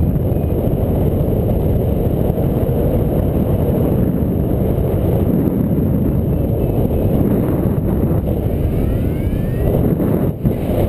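Wind buffeting a GoPro's microphone in flight: a loud, steady low rumble, with a couple of brief dips near the end.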